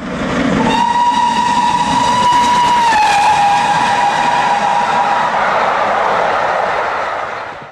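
A passing train's horn sounds one long note that drops in pitch about three seconds in as the train goes by, over the steady rumble of the running train, which fades out near the end.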